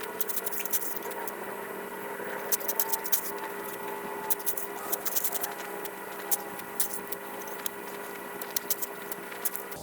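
Shovel working in loose gravel: irregular sharp clicks and rattles of stones, with a steady faint hum underneath.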